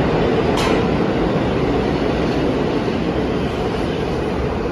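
New York City subway train running through an underground station, a loud steady rumble with a steady hum under it and a brief sharp noise about half a second in.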